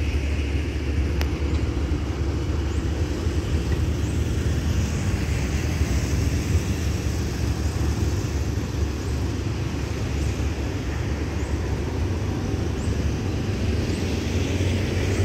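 Steady outdoor background of road traffic beside the railway, with a deep fluctuating rumble throughout. Faint short high chirps come every second or two.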